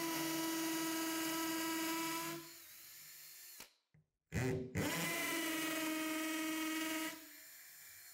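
Cordless drill with a 7/32-inch twist bit boring pilot holes through drywall into a wooden wall stud. There are two runs of a steady motor whine, each about three seconds long, separated by a short stop. Each run drops to a quieter spin for about a second before it stops.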